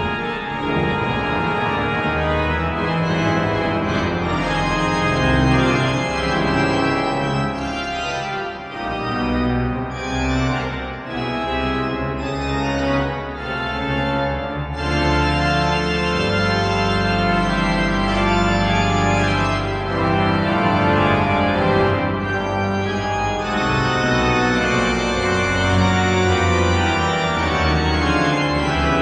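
Pipe organ playing dense, changing chords, with deep sustained pedal notes through the second half.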